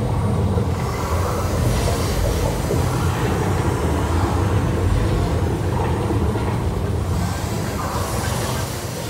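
Steady low rumbling of the Studio Tram Tour ride in the Catastrophe Canyon show scene, with no clear single event.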